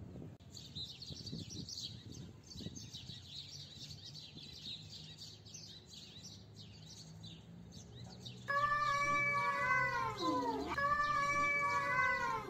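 Cats yowling in long, wavering, drawn-out howls that dip in pitch and rise again, the caterwauling of rival cats squaring off. Before the yowling, which starts about two-thirds of the way in, there is a fainter dense high twittering.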